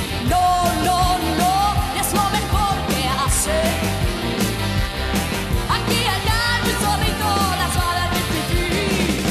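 Rock song performed live: a woman singing over electric guitar and a full band with a steady beat.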